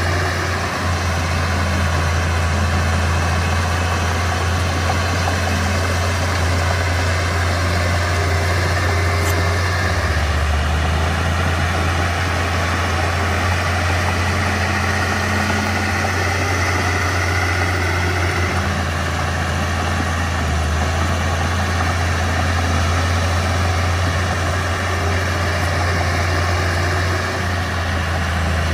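Mitsubishi BD2F bulldozer's diesel engine running steadily with a low drone.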